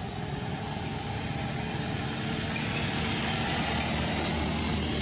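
A motor vehicle engine running steadily with a low hum under a wash of noise, growing a little louder from about two seconds in.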